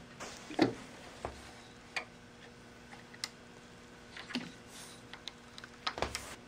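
Light, scattered clicks and knocks, roughly one a second, as an MDF block carrying a dial indicator is handled, set down and nudged into place on a table saw's metal top against the fence rail. A faint steady hum runs underneath.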